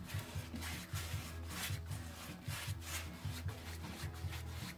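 Paintbrush strokes brushing black metal paint onto a metal petrol tank, a repeated soft swishing about twice a second, over background music.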